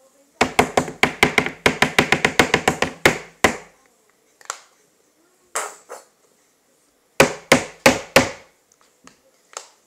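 Nearly empty plastic lotion bottle shaken hard upside down to get the last lotion out: a fast run of sharp knocks, about six a second for three seconds, then a few single knocks and a short run of five near the end. Loud.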